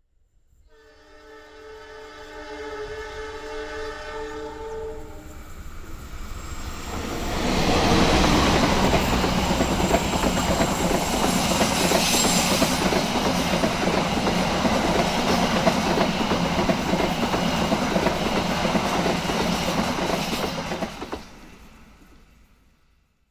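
Indonesian diesel-hauled passenger train: the locomotive's horn sounds one long, steady multi-tone blast for about four seconds as it approaches. The train then passes close by, its engine and wheels running loud on the rails for about thirteen seconds before dropping away near the end.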